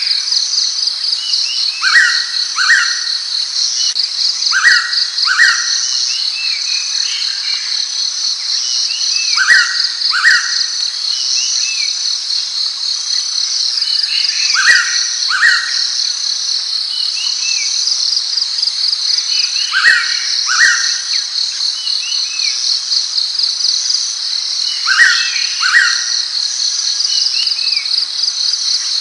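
Blue-winged pitta giving its loud two-note whistle, six times at an even pace of about one pair every five seconds. Behind it runs a steady, fast-pulsing high insect buzz, with small chirps from other birds.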